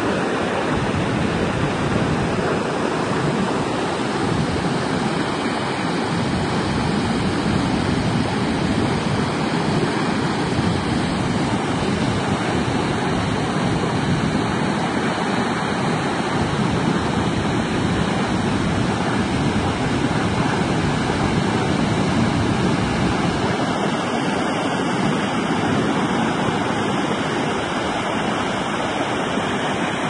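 Water pouring over a dam weir, the dam overflowing after 135 mm of rain: a loud, steady rushing of falling water.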